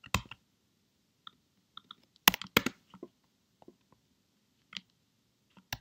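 Computer keyboard keystrokes while typing: a few separate sharp taps, with a quick cluster a little past two seconds in.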